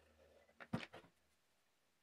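A plastic glue bottle set down once on a wooden workbench with a short knock, otherwise near silence.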